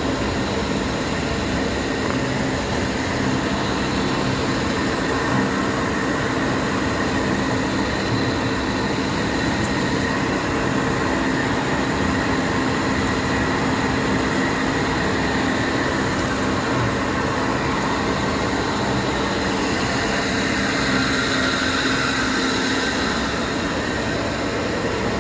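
KASTO HBA 360 AU automatic horizontal metal-cutting band saw running: a steady machine hum with a few held whining tones. About twenty seconds in, the higher whine shifts a little lower in pitch.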